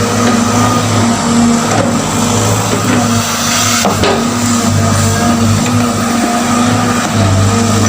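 Excavator's diesel engine running steadily with a deep hum, with a single sharp knock about four seconds in.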